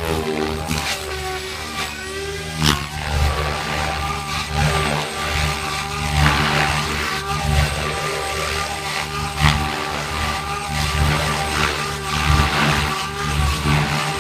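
SAB Goblin Black Thunder electric RC helicopter flying 3D aerobatics: a steady motor and rotor whine that wavers slightly in pitch, with the rotor rush swelling and fading every second or so as the blades load up.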